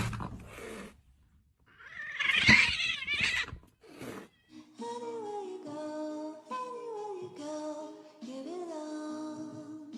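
A sudden loud sound at the start, then a cat yowling loudly for about a second and a half. From about five seconds in, background music with held notes takes over.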